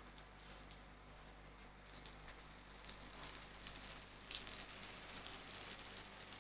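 Faint crackling and sizzling from a tray of margarine-brushed phyllo pastry parcels fresh out of the oven. The crackles start about two seconds in and grow busier.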